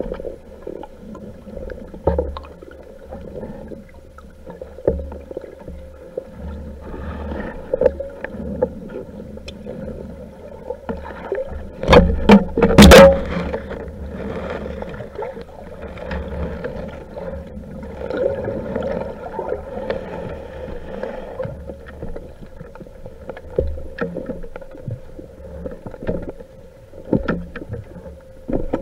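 Muffled underwater sound picked up by a speargun-mounted camera: a steady murky water noise with a faint steady tone, broken by scattered knocks of the gun and spear shaft against the camera. A loud cluster of knocks comes about twelve seconds in.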